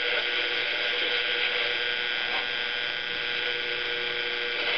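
AM radio static from the small speaker of a Hello Kitty tea-cup clock radio: a steady hiss with faint steady tones running through it, as the set is tuned between AM stations without locking onto one.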